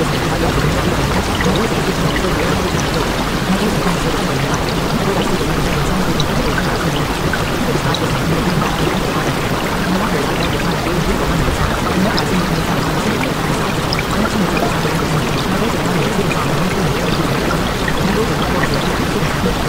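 Steady rushing water that runs on without a break, with faint scattered drip-like ticks over it.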